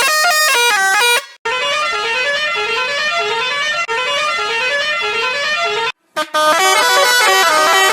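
Musical bus horn sound effect playing stepped tunes in edited variations. A short phrase cuts off about a second in, then repeated rising runs of notes play for about four seconds, and after a brief gap another horn phrase begins.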